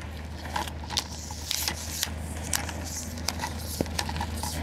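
Scattered small clicks and taps of a K&F Concept D254C1 carbon fibre travel tripod being handled as it is reassembled and its legs spread, over a steady low hum.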